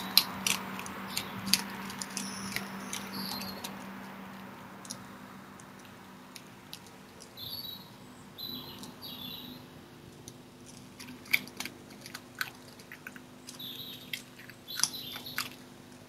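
Red fox chewing and crunching meat from a bowl: bursts of sharp wet clicks in the first few seconds and again in the second half. Songbirds chirp briefly in the middle and near the end.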